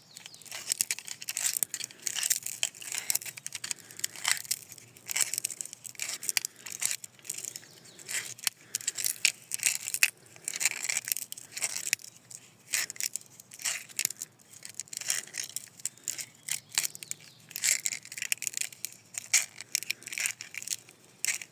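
Husqvarna 372 chainsaw recoil starter spring being worked by hand into the starter housing: irregular metallic clicks and scrapes of the coiled steel spring against the housing.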